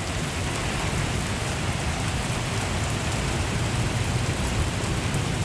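Steady heavy thunderstorm rain, with wind rumbling on the microphone.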